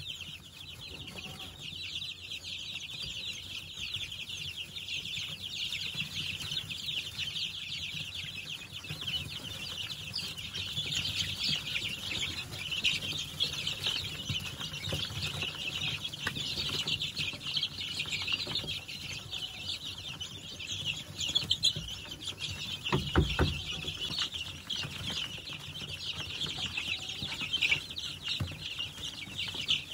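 A brood of junglefowl chicks and ducklings peeping continuously in a dense chorus of high chirps. A single dull knock sounds about three-quarters of the way through.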